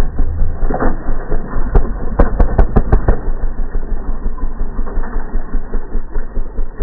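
Dirt bike engine running with a fast, pulsing beat while the bike lies on its side after a crash. About two seconds in comes a quick run of sharp clicks.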